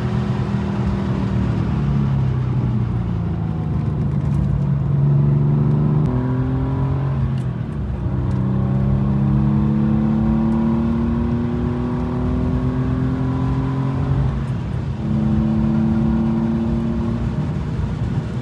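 BMW Z4 35is twin-turbo inline-six pulling under acceleration. Its pitch climbs slowly through each gear and drops at a couple of upshifts.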